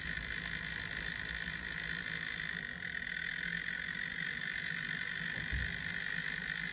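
An old model F-unit diesel locomotive's motor and gear train running steadily with a rough, buzzing whine while its wheels spin on a wheel-cleaning pad; it sounds horrible, from a mechanism that had not run in years. A soft bump about five and a half seconds in.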